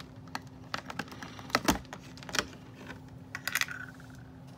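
Scattered small clicks and taps as hands handle a fashion doll and its plastic parts, with a few louder knocks a little past the middle.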